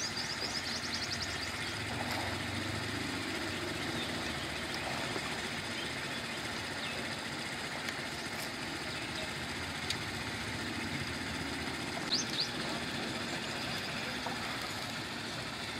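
Steady outdoor background with a low engine-like hum, strongest a couple of seconds in. A bird gives a quick run of high chirps at the start and a short call about twelve seconds in.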